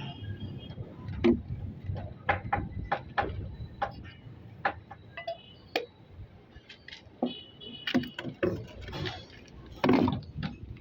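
Scattered, irregular knocks and clicks of hand work over a low background rumble, with a sharp knock about a second in and a loud one near the end.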